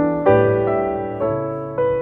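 Background keyboard music: slow notes and chords played about two a second, each struck sharply and then fading.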